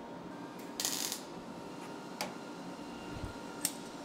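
Light metal-on-metal handling of a slide hammer on a steel fixture: a short rattle about a second in, then a few sharp metallic clinks.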